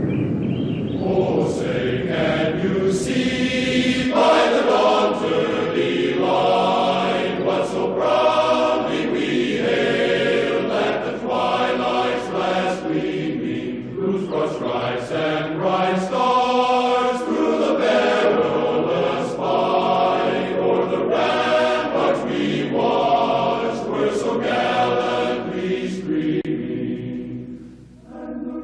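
Choir singing slow, held chords, over a low rumble that stops about four seconds in.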